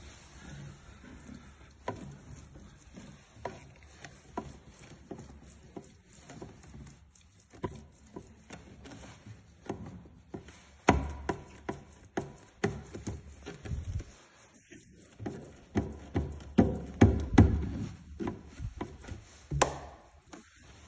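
Footsteps on a wooden staircase, the treads creaking and knocking underfoot. The steps get heavier from about halfway through.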